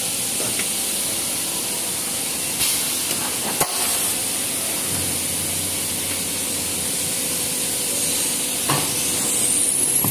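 Maxi roll paper making machine running with a steady hiss and hum, with a couple of sharp clicks and, near the end, a rising high whine.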